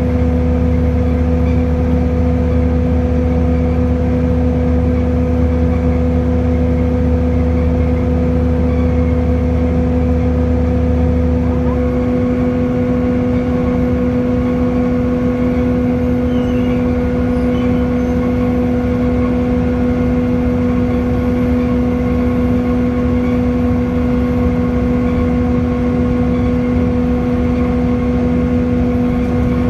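Scania K230UB bus's five-cylinder diesel engine running steadily under load on a hill climb. About twelve seconds in, the deep low rumble drops away and a higher whine comes in.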